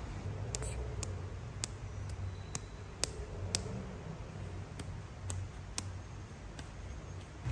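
A monkey's hands rubbing and kneading a man's bare leg: about ten sharp little clicks scattered over a low, uneven rumble of skin contact.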